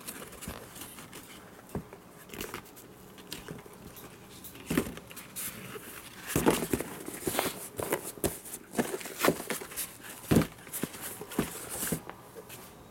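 A fabric tool bag being handled, turned and set down on a counter: irregular rustling of the canvas with scattered knocks and clicks, the loudest about six and a half and ten seconds in.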